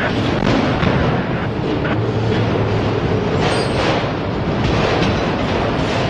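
Freight train passing close by: a loud, steady rumble with a few sharp wheel knocks scattered through it.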